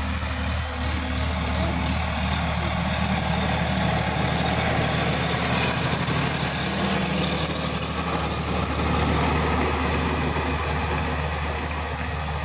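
Sonalika DI-50 RX tractor's diesel engine running steadily under load while pulling a rotary tiller through the soil, with the engine note and the tiller's churning noise. It gets louder as the tractor passes close by and eases off near the end as it moves away.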